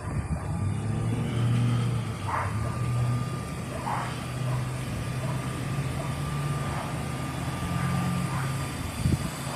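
2008 Chevrolet Suburban's V8 engine idling steadily with a low hum. There is a brief knock near the end.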